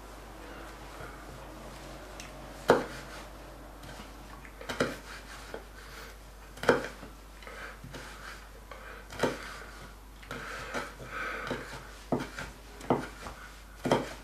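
Kitchen knife cutting red chili on a wooden cutting board: irregular sharp knocks of the blade on the board, one or two seconds apart, the loudest about three seconds in.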